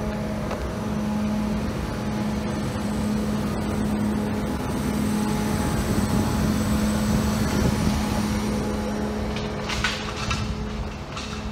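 Steady engine hum with a low rumble, loudest about halfway through, typical of a large truck idling. A few brief rustles near the end.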